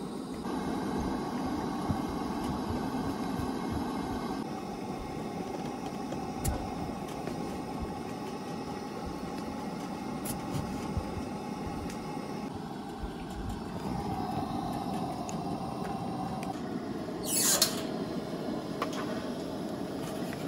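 Steady rushing background noise of outdoor camp cooking, with a short sharp clatter about seventeen seconds in.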